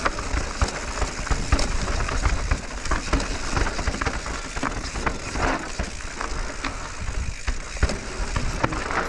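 Radon Swoop enduro mountain bike descending a rough, rocky dirt trail: tyres on loose gravel and a steady rattle of the bike, with many small knocks as it goes over stones.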